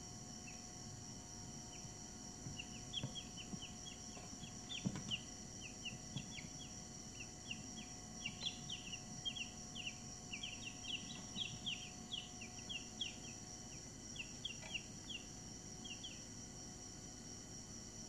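Week-old Brahman chicks peeping: many short chirps that drop in pitch, coming singly and in quick runs, over a steady high-pitched whine.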